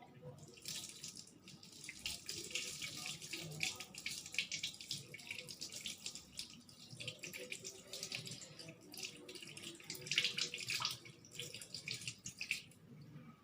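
Water running from a tap and splashing over hands as they are rinsed in a sink. It starts about half a second in and stops shortly before the end.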